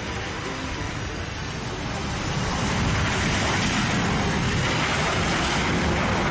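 Airbus A330 landing rollout: a steady, broad jet-engine roar that grows louder about two and a half seconds in as reverse thrust builds, then holds steady.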